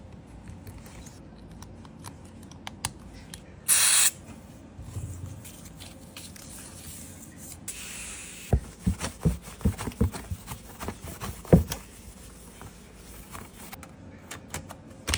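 Small tools and parts being handled on a repair bench during MacBook Air reassembly. There is a short hiss about four seconds in, then a run of light clicks and knocks from about eight to twelve seconds.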